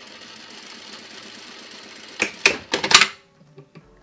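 Sewing machine stitching steadily for about two seconds, then stopping, followed by a quick run of loud clicks and knocks.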